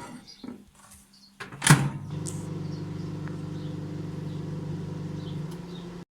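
A microwave oven door clacks shut about a second and a half in, then the oven runs with a steady low hum, which cuts off suddenly near the end.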